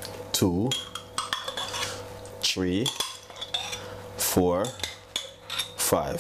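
Metal spoon scraping Thai green curry paste out of a glass jar, with four squeaky scrapes that dip and rise in pitch and light clinks of the spoon against the glass.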